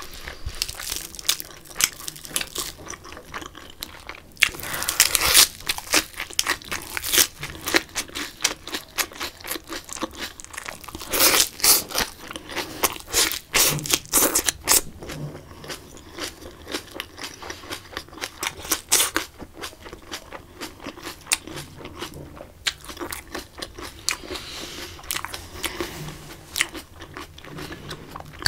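Crisp lettuce leaves and greens crunching as they are chewed close to the microphone, in irregular bursts of crackly bites and wet chewing that come thickest a few times.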